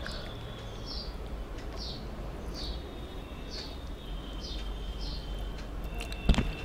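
A small bird calling repeatedly: short, high, downward chirps about once a second, with a thin steady high note beneath them. About six seconds in, a single sharp knock, the loudest sound.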